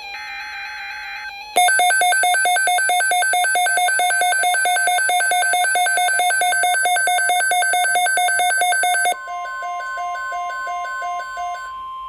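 Emergency alert tones ahead of a NOAA Weather Radio watch announcement. After a quieter electronic tone, a loud, rapidly pulsing electronic beeping starts about a second and a half in. About nine seconds in the beeping drops in level and a steady single tone sounds with it.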